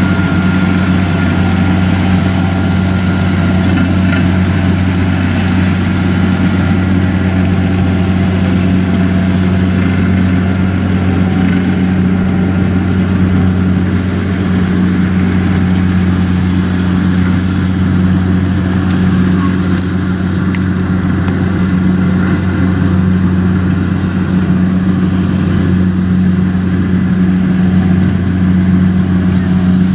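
Kubota DC-60 combine harvester running steadily while cutting rice, a loud, even engine drone that holds throughout.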